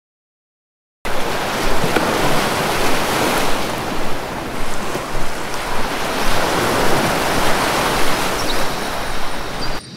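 Surf washing onto a sandy beach: a loud, even wash of noise that swells and eases. It starts abruptly about a second in.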